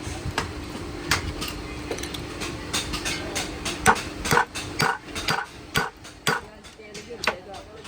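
Metal shock-absorber parts and tools clinking and knocking together in irregular taps, more frequent in the second half, over a steady low hum that fades out about halfway through.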